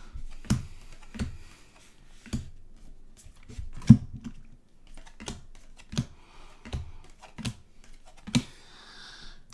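Trading cards being handled and flipped through one by one: about a dozen light clicks and taps at irregular intervals, the loudest just before the middle.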